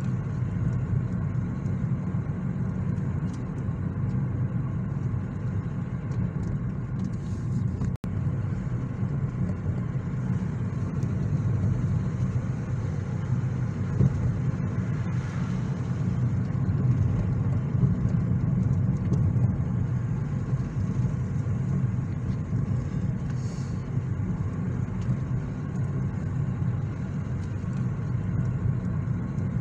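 Car driving along a road: a steady low rumble of engine and tyres, broken by a momentary dropout about eight seconds in. An oncoming van passes around the middle.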